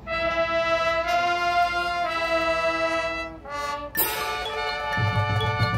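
Marching band horn line playing held brass chords, moving to a new chord about once a second. About four seconds in a sudden bright attack hits, and a strong low brass layer joins about a second later.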